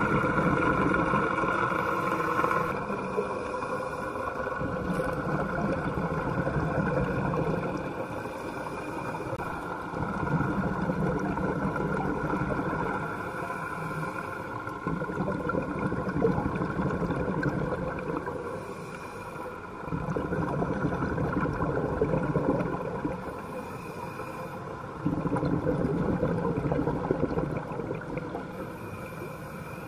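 Scuba diver breathing through a regulator underwater: a gurgling burst of exhaled bubbles about every five seconds, each followed by a shorter hiss of the inhale, over a faint steady hum.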